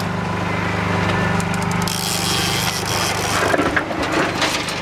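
A boat motor running steadily under a rapid ratcheting of a fishing reel as line is worked on a hooked Chinook salmon, with a rush of water splashing at the hull from about three seconds in.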